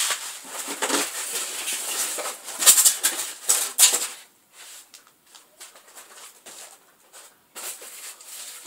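Packing material in a cardboard box rustling and crinkling as it is searched by hand, busy and crackly for about four seconds, then softer, scattered rustles and light clicks.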